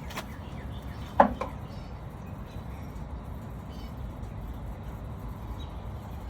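A hand tool knocks sharply once against the brake caliper as it is set to push the piston back, over a steady low outdoor rumble.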